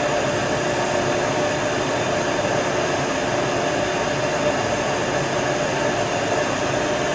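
Steady machinery noise of a York YMC2 magnetic-bearing centrifugal chiller running at part load, with a faint steady tone through it.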